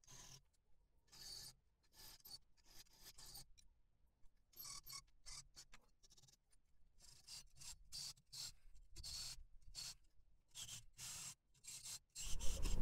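A fine-toothed hand saw blade cutting through small metal plates clamped in a vise, with quick back-and-forth rasping strokes in runs with short pauses. A louder low rumble comes in near the end.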